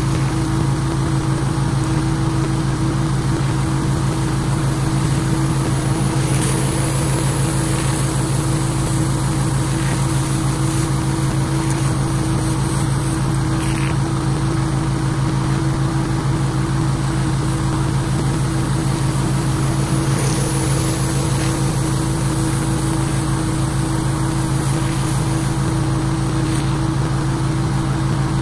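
Pressure washer's engine running steadily under load, with an even hiss of water spray from the surface cleaner on concrete.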